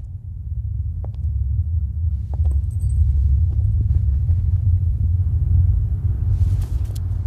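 A deep, steady bass rumble from the reception's sound system, with no tune or beat, swelling over the first couple of seconds, with a few faint clicks.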